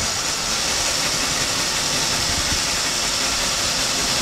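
Cordless drill running steadily, slowly boring a pilot hole through drywall with a very small bit.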